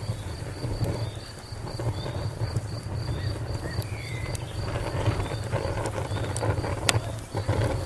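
Fire crackling: a low steady rumble with scattered sharp pops, one louder pop near the end. Crickets chirp in the background in a high, even pulse several times a second.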